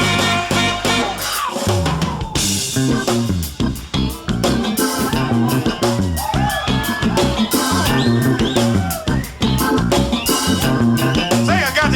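Background music: an instrumental band intro with drum kit and guitar playing a steady beat.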